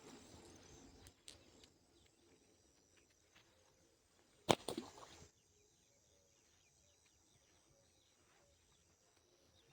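A slingshot shot: one sharp snap of the released rubber band about four and a half seconds in, with a short rush of noise after it.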